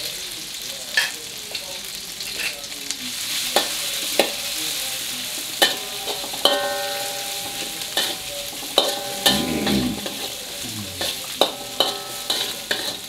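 Chillies, dried anchovies, garlic and shallots sizzling in oil in a steel wok, stirred and scraped with a metal spatula that clicks against the pan. Several of the harder strikes leave the wok ringing briefly.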